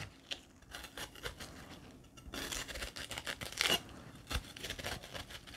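Kitchen knife cutting through a crisp Korean pear, with faint crunching and scraping strokes. There is a light knock about four seconds in.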